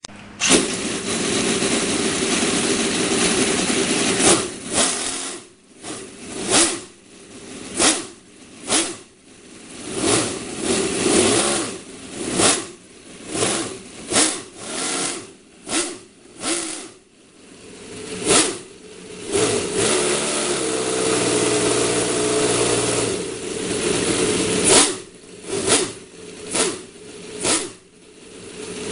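Scale model V8 engine in an RC drag car running at idle, then revved in sharp throttle blips about once a second. It settles to a steady idle for a few seconds, then is blipped again several times near the end.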